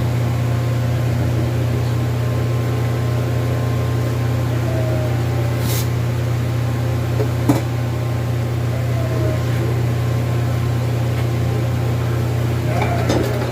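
Welding machine running with a steady low hum, broken by a faint sharp tick about seven and a half seconds in.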